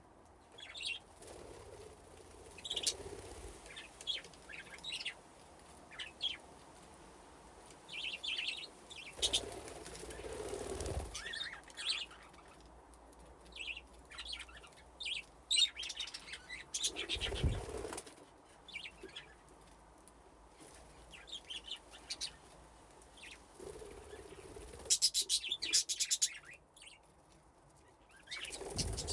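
Budgerigars chirping and chattering in short, scattered calls, with a few bursts of wing flapping as birds take off and land, and a quick run of sharp chirps near the end.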